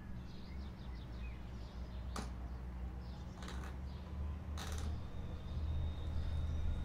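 Plastic playhouse roof panels being handled and fitted: a sharp click about two seconds in, then two short scraping rustles a second apart. Birds chirp faintly over a steady low rumble.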